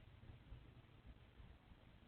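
Near silence: faint, steady low hum and hiss of outdoor background.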